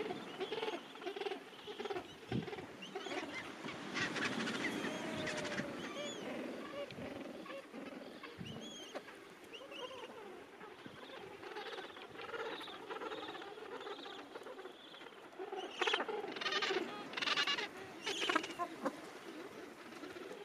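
Gentoo penguin colony calling: many overlapping squawks and chatter, with a run of louder, harsher calls a few seconds before the end.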